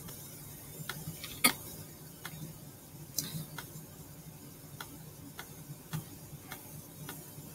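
Light, irregularly spaced single clicks of a computer pointer button, about a dozen over several seconds, the loudest about a second and a half in. Each click steps a bridge hand-replay viewer on by one card.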